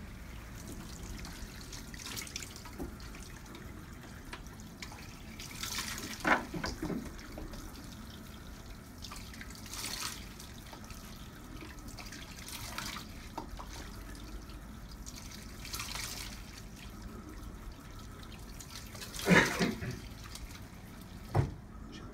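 Tap running into a stainless steel bowl sink while a man rinses face-wash foam off his face, splashing water up with cupped hands every few seconds. The loudest splashes come near the end.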